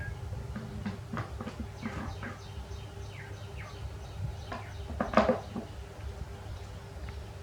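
A run of short, high chirps and squeaks from a small animal, most of them falling in pitch, with one louder call about five seconds in.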